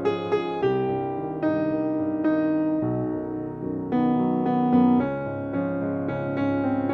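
Solo piano music: a slow, gentle melody of held notes and chords, a new note struck every half second to a second.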